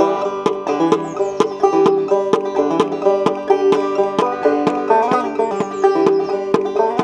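Five-string banjo played clawhammer style, a steady rhythmic tune of plucked notes. The picking thumb strikes the banjo head on the beat, adding a regular percussive tap like a drum.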